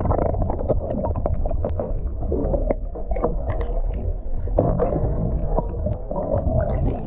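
Muffled underwater sound picked up by a camera held below the lake surface: a steady low rumble of moving water, with many small crackles and clicks from bubbles against the housing.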